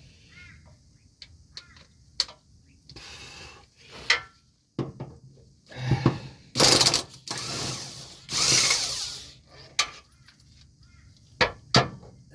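Ratchet wrench working 14 mm cross member bolts under the car: scattered metal clicks and taps, then two loud bursts of rapid ratcheting, each lasting about a second and a half, around six and eight seconds in.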